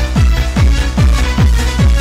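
Fast electronic dance music with a heavy kick drum about three times a second, each beat dropping sharply in pitch, over sustained synth chords.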